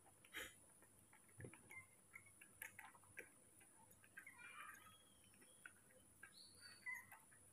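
Near silence with faint, irregular soft clicks and ticks: a baby monkey suckling at the teat of a milk bottle.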